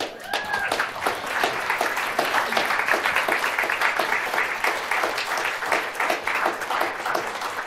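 Lecture audience applauding, many hands clapping steadily; the clapping thins out near the end.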